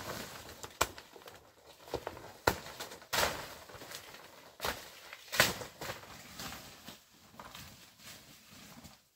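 Large forest leaves being picked by hand: foliage rustling, with irregular sharp snaps and cracks of stems breaking, the loudest a little past five seconds in.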